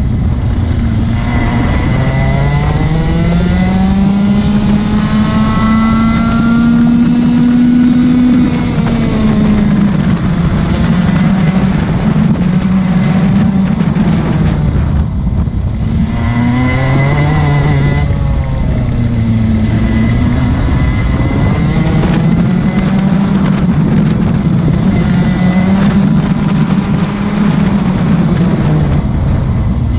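Racing kart engine heard from on board at race pace, its note climbing steadily as the kart accelerates and dropping away when it slows for corners, several times over.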